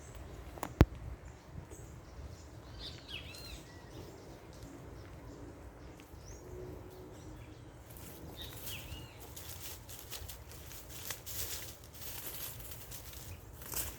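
Bird chirps over a low rumble of wind noise outdoors: short, curved calls in two little groups, with a single sharp click about a second in.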